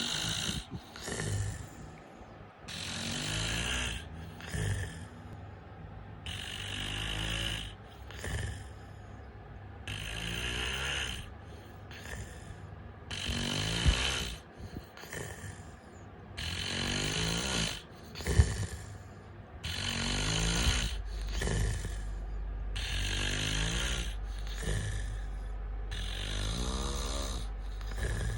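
A man snoring in a slow, regular rhythm, one rattling snore about every three and a half seconds. Two short, louder jolts come about halfway through.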